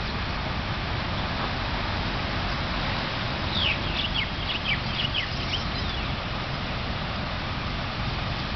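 A bird calling a quick run of about eight short, falling chirps near the middle, over steady background noise.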